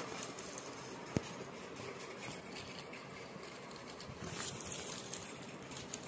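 Plastic courier mailer bag crinkling and rustling as it is handled and cut open with scissors, with a sharp click about a second in and a few smaller ones later.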